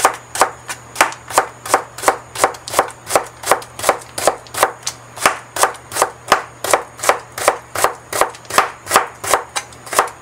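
Chef's knife cutting stacked daikon radish slices into thin strips on a plastic cutting board: an even run of crisp chops, about three to four a second.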